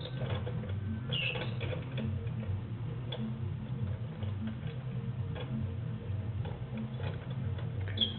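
Gears and cams of a hand-cranked trapeze-artist automaton ticking and clattering steadily as the crank is turned, with a rhythmic low rumble. A brief squeak comes about a second in and again near the end.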